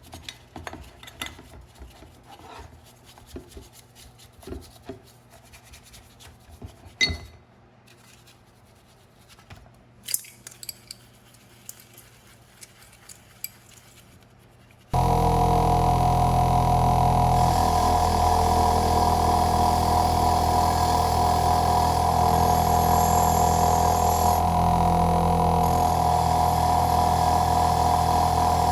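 Small metal and wooden parts being handled and rubbed, with scattered light clicks and knocks. About halfway through, a loud power tool starts abruptly and runs steadily with a constant hum and whine.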